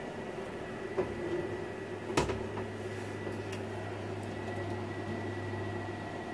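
Cooling fans of two Cisco Catalyst 3750G switches running steadily after boot, with a faint high whine over the fan noise. A light click about a second in and a louder knock a little after two seconds come from the switch being handled.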